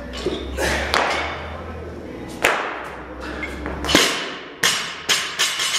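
A loaded 165-lb barbell hitting the rubber-matted gym floor: one impact about two and a half seconds in, then the loudest about four seconds in as the bar is dropped, followed by three bounces coming quicker and quicker.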